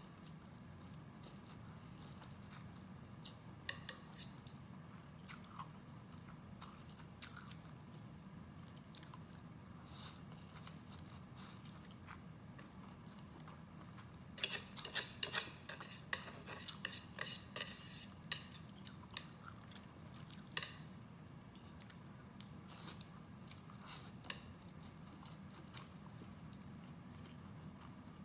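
A woman chewing and slurping spicy vermicelli noodles, close-miked: scattered wet mouth clicks, with a thick run of quick smacking and slurping sounds about halfway through.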